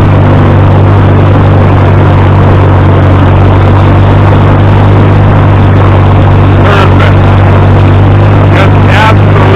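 Farmall 300 tractor's four-cylinder gasoline engine running steadily with a constant, even note, the choke off after its clogged carburetor was cleaned.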